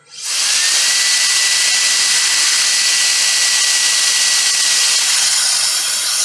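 Handheld electric air duster running at full speed, blowing air over a laptop logic board to cool it: a loud steady rush of air with a steady high motor whine. It is switched on right at the start and spins up within a fraction of a second.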